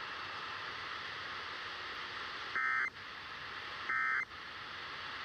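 Steady hiss from a weather-radio receiver, then two short bursts of Emergency Alert System digital data tones about a second and a half apart. This is the SAME end-of-message code that closes the alert.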